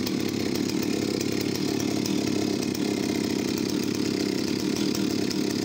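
Vintage Jonsered 80 professional chainsaw's large two-stroke engine running steadily at one speed, not cutting.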